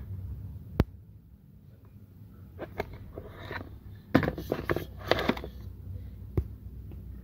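Clicks and clatter of a removed throttle body being handled and turned over in the hand against a hard surface. There is a single sharp click about a second in, a few more near the middle, a denser run of knocks and rattles around four to five seconds, and one last click near the end.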